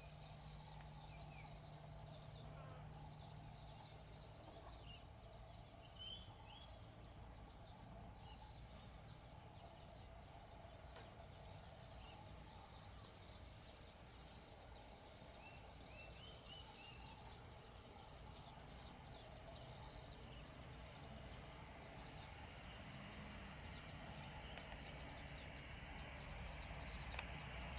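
Faint outdoor ambience: a steady high-pitched insect drone with a few short bird chirps, over a low, distant rumble that grows slightly near the end.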